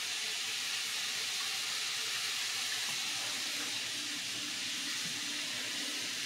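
Cube steak and potatoes frying on the stove: a steady, even sizzle.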